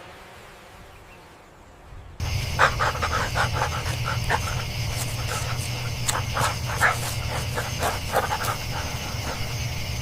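A fading sound dies away, then about two seconds in the sound cuts to an outdoor camera recording: a steady low hum and hiss with many quick, irregular chirps, like insects calling.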